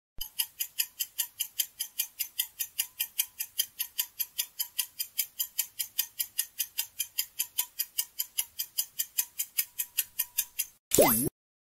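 Clock-like ticking countdown-timer sound effect, about four sharp ticks a second for roughly ten seconds, counting down the time to answer. It stops near the end and is followed by a short swooping sound effect.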